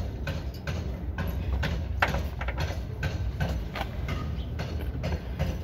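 Metal hand tools clicking and knocking against a car's front suspension arm as it is worked on, a few irregular sharp clicks a second over a low rumble.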